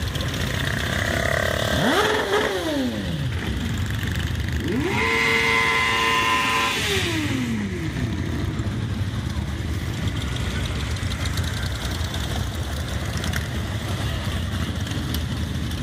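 Motorcycles riding slowly past with a steady low engine rumble. One engine is revved briefly about two seconds in, then revved again for longer from about five seconds in, held high for a couple of seconds before it drops back.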